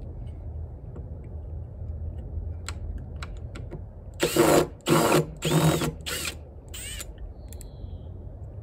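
Electric drill run in five short bursts, its motor whine rising and falling with each trigger pull, after a few light clicks.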